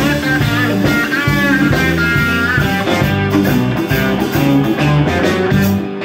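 Live rock band playing, led by an electric guitar solo with notes that bend up and down in pitch over bass and drums.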